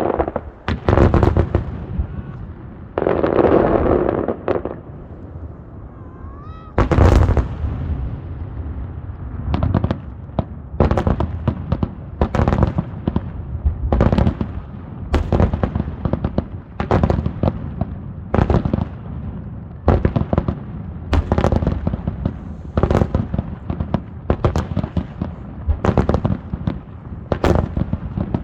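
Aerial firework shells bursting in quick succession, roughly one a second, with a short rising whistle of a shell going up about six and a half seconds in.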